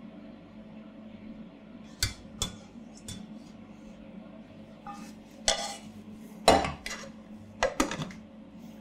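A stainless steel mixing bowl and spatula clank and scrape against the rim of a compressor ice cream machine as the chocolate ice cream base is poured and scraped in, and the machine's lid clinks into place near the end. A steady low hum from the machine runs underneath.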